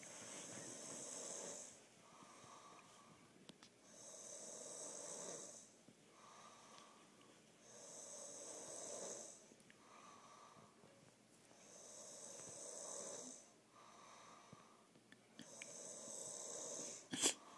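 Deep snoring in slow, regular breaths: five long snores about four seconds apart, each followed by a softer, higher-pitched breath. A brief sharp noise near the end.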